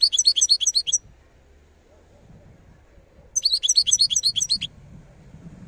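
European goldfinch singing: two quick bursts of rapid, high twittering notes, about seven a second, the first at the start and the second a little over three seconds in.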